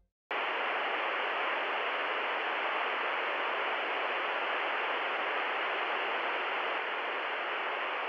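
White noise machine hissing: a steady, even rush of noise that cuts in abruptly just after the start and holds unchanged, slightly muffled with little treble.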